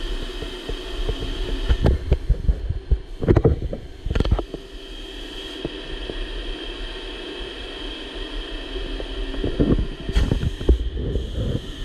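Compressed-air paint spray gun hissing, the hiss cutting out briefly a few times as the trigger is let go, over a steady machine hum. Irregular low thumps come in two clusters, one a couple of seconds in and one near the end.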